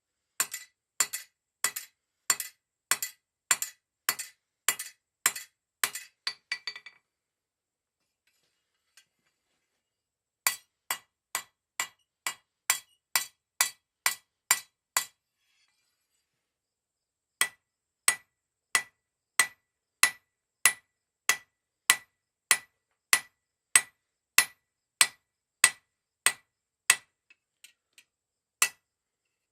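Blacksmith's hammer striking a 1/2 inch mild steel bar on the anvil, steady blows about one and a half a second, in three runs broken by two pauses of a few seconds. The first run ends in a few quicker, lighter taps.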